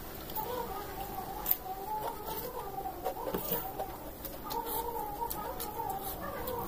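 Chickens clucking in the background, with a few light clicks and taps, the sharpest about a second and a half in.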